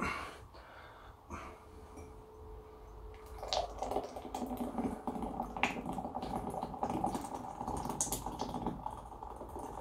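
Steel frying pan scraping and clicking against graphite ingot moulds as leftover molten zinc is poured out of it, a dense crackling rattle starting about three and a half seconds in.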